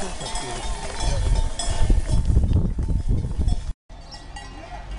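A flock of sheep on the move: bells clinking among the animals, with a bleat or two over a heavy low rumble. The sound cuts out for a moment about four seconds in and comes back quieter.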